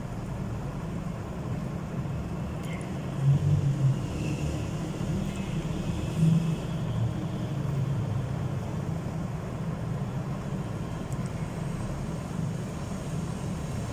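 Steady low background hum, with a few faint soft pats and rustles of hands dredging chicken pieces in flour and egg batter.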